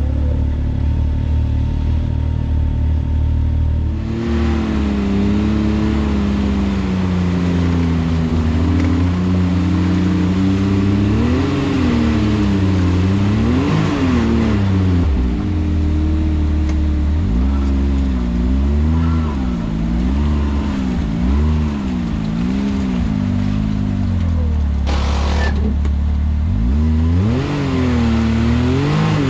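Can-Am Maverick X3 side-by-side's turbocharged three-cylinder engine under way on a trail. The revs rise and fall again and again with the throttle, with a brief hiss about 25 seconds in.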